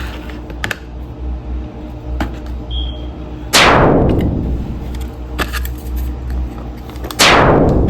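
An edited-in sound effect: a sudden hit followed by a falling sweep, played twice about three and a half seconds apart, over a steady low hum.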